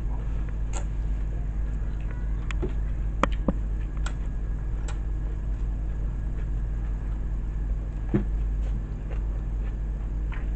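Eating with the hands, heard as scattered soft clicks and mouth smacks as rice and fried chicken are picked up and chewed. A steady low hum runs underneath.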